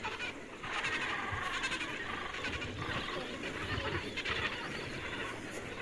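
A penguin colony calling: many overlapping calls from many birds at once.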